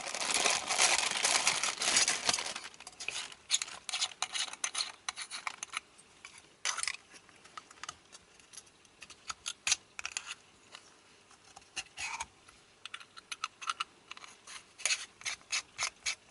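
Plastic packaging crinkling for the first couple of seconds, then scattered small clicks, taps and scrapes as the parts of a small aluminium power bank case are handled and fitted together.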